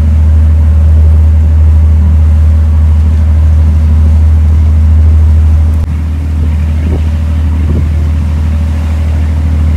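Passenger ferry's engine running with a steady, loud low drone, continuing after a cut about six seconds in.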